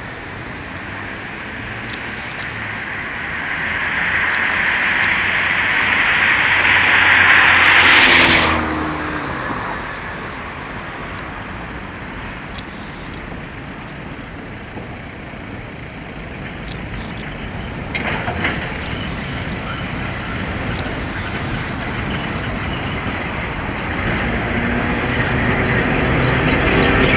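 Steel-framed vintage articulated tram running on its rails, the wheel and track noise swelling as it approaches, with road traffic behind. The sound breaks off abruptly about eight seconds in, then builds again as the tram draws near and passes close near the end.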